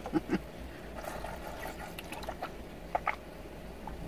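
A person drinking water from a plastic water bottle: sips and swallows with a few short clicks.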